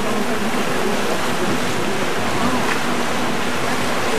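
Steady rush of water churned up by the paddle steamer Waverley's paddle wheels as she comes alongside a pier.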